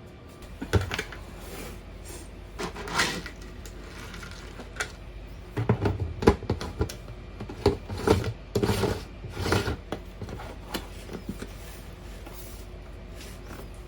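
Lid of a Vittles Vault plastic dog food container being fitted and closed: a series of hard plastic knocks, clicks and rubbing, a few near the start and a busy cluster from about six to ten seconds in.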